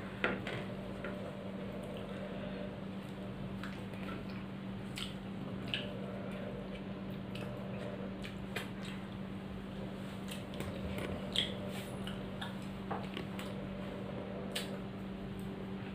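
A person eating rice by hand: wet, squishy mixing of food on the plate, chewing and finger-licking smacks, heard as scattered short clicks over a steady low hum.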